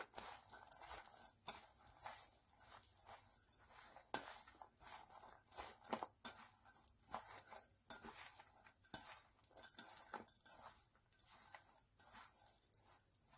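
Bare hands tossing and squeezing seasoned blanched chwinamul (aster greens) in a stainless steel bowl: faint, irregular rustling of wet greens with small soft clicks.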